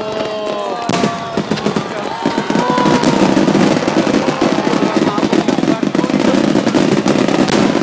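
Fireworks going off in a dense, rapid crackle of many small pops, growing louder and thicker about two seconds in.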